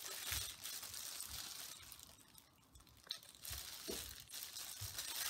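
Plastic drop sheet and disposable gloves crinkling and rustling as gloved hands squeeze tie-dye bottles onto a rubber-banded mask. Several soft low bumps from the bottles being handled, with a quieter stretch near the middle.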